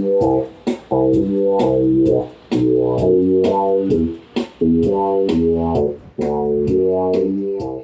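Instrumental music: a band with guitar and bass playing chords over a steady drum beat.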